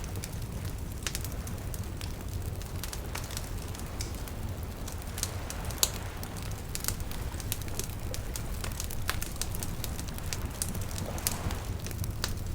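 Wood campfire burning, crackling and popping irregularly over a steady low rumble of flame, with one sharper pop about six seconds in.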